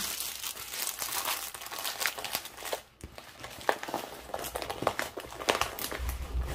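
Plastic packaging crinkling and crackling in irregular bursts as a diamond-painting canvas is handled and worked back into it, with a brief lull about halfway through.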